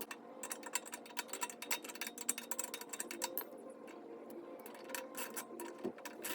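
Quick irregular clicks and clatter of hand tools and metal parts during engine disassembly, over faint background music.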